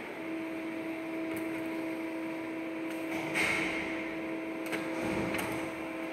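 Desktop printer running as it prints a report page: a steady motor hum with a clear pitch that starts at the outset, with several sharp clicks and short whirring bursts from the paper feed along the way.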